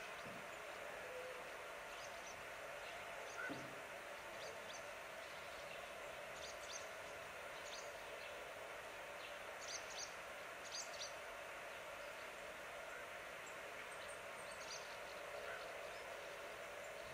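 Outdoor nature ambience: a steady background hiss with small birds chirping now and then, short high chirps that bunch up around the middle.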